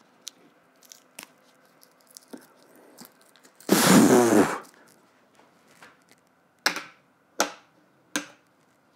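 Plastic segments of a Target Corona dartboard ring light being handled and fitted: light taps, a louder half-second of rubbing and scraping about four seconds in, then three sharp clacks about three-quarters of a second apart near the end as the segments snap into place magnetically.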